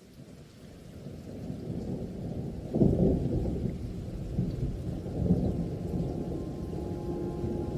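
Rain and rolling thunder fading in from silence, with the loudest thunder rumble about three seconds in and another a little after five seconds.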